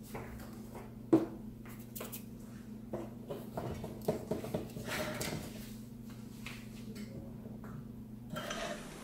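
A spoon clinking and scraping against a mixing bowl and a metal muffin tin as batter is spooned into the cups, with a sharper knock about a second in. A low steady hum runs underneath and stops near the end.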